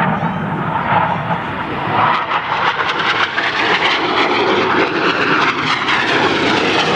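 Jet noise from the Red Arrows' BAE Hawk T1 jets flying in display. It is loud and continuous, and takes on a rough, crackling texture from about two seconds in.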